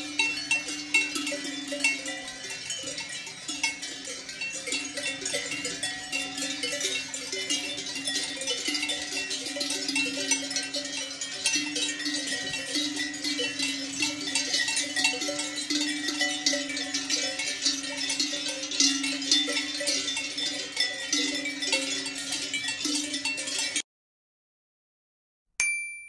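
Many cowbells on a grazing herd of cattle clanking and jangling continuously, with bells of several pitches overlapping. The sound cuts off abruptly about 24 seconds in.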